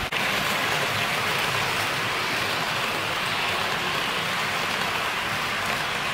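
HO-gauge model train, a C57 steam locomotive model hauling coaches, running along the track with a steady, even whirring hiss of metal wheels on the rails and the running gear. There is no chuffing beat. A brief dropout comes at the very start.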